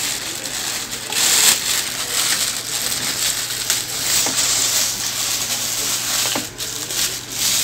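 Clear plastic wrapping crinkling and rustling as a boxed speaker is handled and unwrapped, loudest about a second in.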